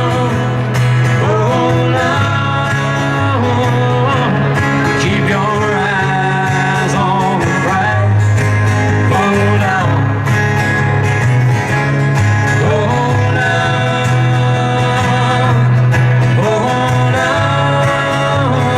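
Country or bluegrass music with guitar and a gliding lead melody over a steady bass.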